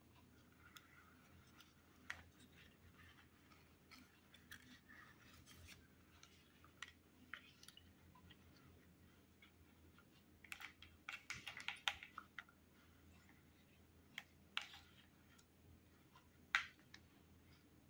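Near silence with faint handling sounds: an orchid's leaves rustling and tapping lightly against a pot of water as hands settle the plant in, with a short run of small clicks a little past the middle.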